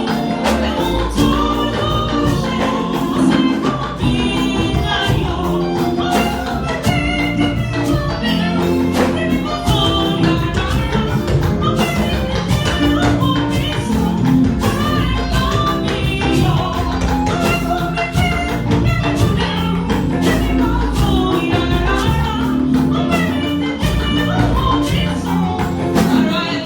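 Choir singing a gospel anthem with band accompaniment: bass, keyboard and percussion, with many regular beats.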